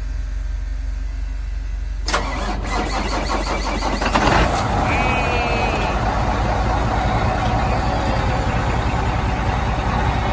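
Volvo semi truck's diesel engine cranking on the starter for about two seconds on a jump-start from a car battery, then catching about four seconds in and settling into a steady idle: the jump-start has worked.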